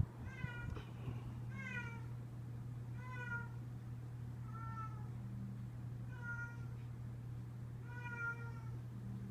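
Domestic cat meowing over and over, six short calls about a second and a half apart, each dipping slightly in pitch.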